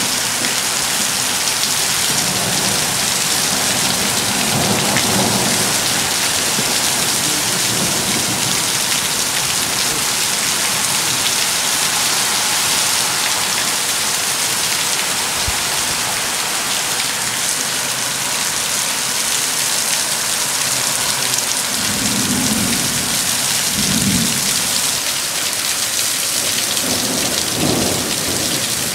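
Heavy rain pouring down in a thunderstorm, a loud steady hiss, with low rolls of thunder rumbling several times: a few seconds in, again soon after, twice about two-thirds through, and once more near the end.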